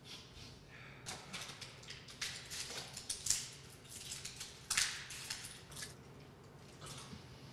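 A man huffing breath into his cupped hand and sniffing it, in short hissy puffs, mixed with small clicks and rustles of handling.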